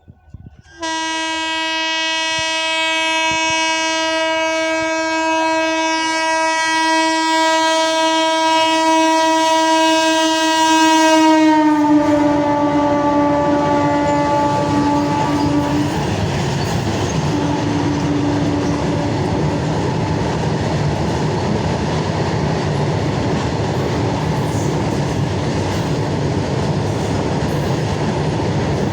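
Freight train passing at speed: the locomotive's horn sounds one long blast starting about a second in, drops in pitch as the locomotive goes by and fades out, then the wagons rumble and clatter over the rails.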